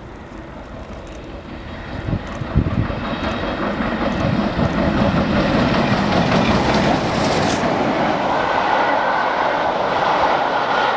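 Steam locomotive and its train passing at speed, the noise swelling sharply about two seconds in as the engine approaches. It stays loud as the locomotive goes by and the coaches clatter past on the rails.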